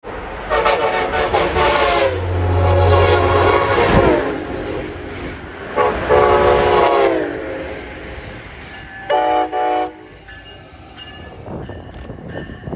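Amtrak electric trains sounding their multi-note horns as they pass at speed: three long horn chords in the first seven seconds, each sliding down in pitch as the train goes by, with a low rumble under the second, then two short blasts about nine seconds in.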